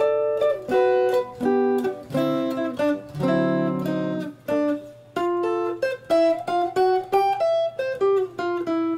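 Clean-toned Stratocaster-style electric guitar playing a single-note jazz phrase, with a fuller chord sounded about three and a half seconds in and a short break just before the line resumes.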